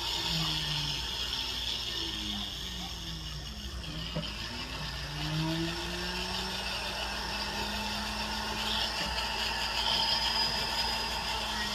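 A small motorised rotary tool whirring, its speed rising and falling again and again, while it smooths the freshly welded bail of a metal charm, with a steady hiss of the abrasive on the metal.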